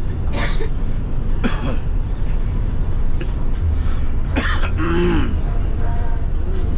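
Tour bus running: a steady low rumble, broken by three short sharp knocks and a brief vocal sound around five seconds in.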